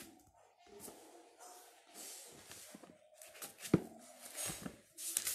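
Quiet room with a few soft paper rustles and one sharp tap a little past halfway, from papers and objects being handled at a desk.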